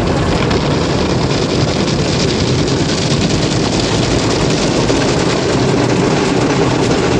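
Water jets and spinning cloth brushes of an automatic tunnel car wash spraying and scrubbing the car, heard from inside the cabin as a loud, steady wash of noise.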